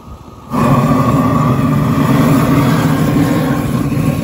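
A handheld flamethrower-style torch roars steadily as it blasts a flame jet into lump charcoal to light it, throwing sparks. It starts suddenly about half a second in and keeps going.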